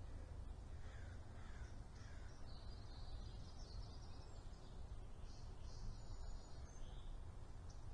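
Wild birds calling in the background, with a few short downward-sliding calls in the first two seconds and higher chirps later, over a steady low hum.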